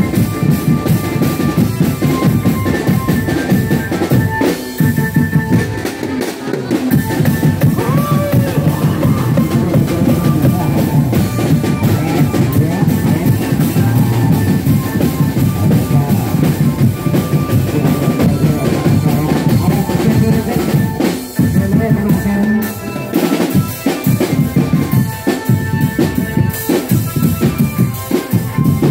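Loud, drum-led music with a fast, dense beat of bass drum and rim strokes, the kind of accompaniment played for a can macanan costume show.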